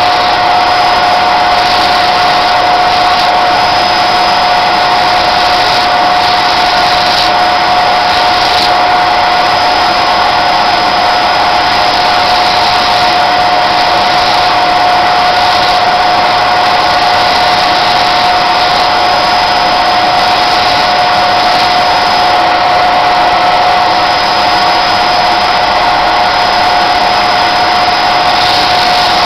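Small electric motor spinning a sanding disc, running at a steady pitch with a high whine over a hiss; the hiss grows rougher now and then.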